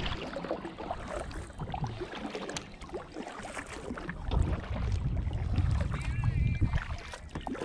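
Water sloshing around a fishing kayak with scattered small knocks and clicks, and a low rumble swelling about four seconds in.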